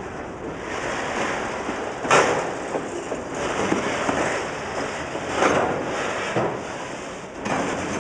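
Freight train of boxcars and autorack cars rolling slowly past, a steady rumble and rattle of wheels on rail with two sharp clacks about three seconds apart.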